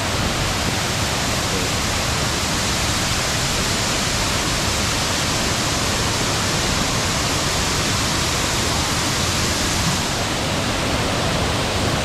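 Steady rush of the El Limón waterfall, a tall cascade in heavy flow, plunging into its pool: an even, unbroken wash of water noise.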